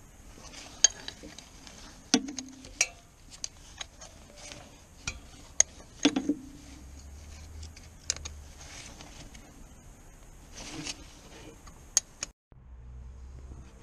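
Irregular metallic clinks, taps and knocks of hand tools and metal fittings being handled while working under a car, some with a short ring. The sound cuts off abruptly about twelve seconds in.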